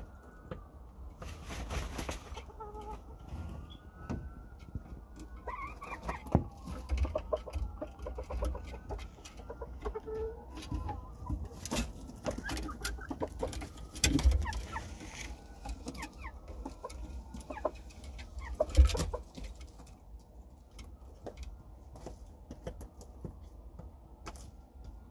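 Junglefowl and hens clucking and calling, a steady series of short gliding calls, mixed with scratches and knocks of birds moving on a wooden perch; two louder thumps come about halfway through and again a few seconds later.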